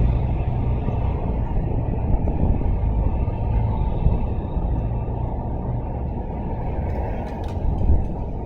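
Wind buffeting the microphone, a low, fluctuating rumble.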